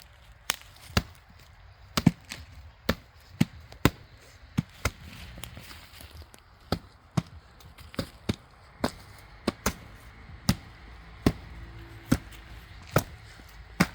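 Repeated sharp chopping strikes into wood, an uneven run of single blows, often about two a second, with short pauses between runs.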